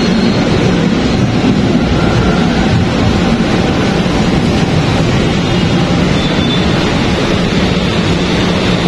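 LRT light-rail train pulling into the station and rolling past along the platform: a loud, steady rumble of the moving cars.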